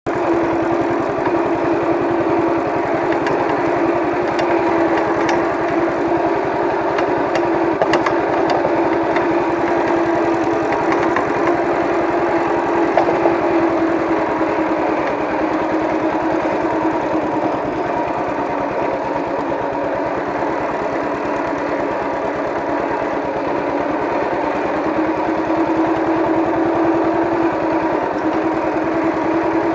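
Minitractor engine running steadily under load as it tows a homemade drag over rough ground. The engine dips slightly in level through the middle and picks up again near the end.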